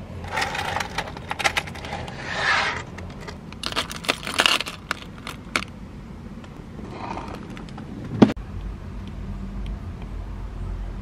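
Acrylic keychains with metal lobster clasps and rings jangling and clicking against each other as they are handled in a box, in bursts over the first five seconds or so. A single sharp tap comes later, followed by a low steady hum.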